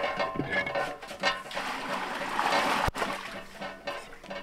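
Water running from a standpipe tap and splashing into a metal cooking pot as it is rinsed.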